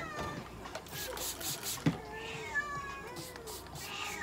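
Domestic cat meowing in protest several times while held by the tail for anal gland expression, its calls drawn out and bending in pitch. Paper tissue rustles, and a single thump sounds about two seconds in.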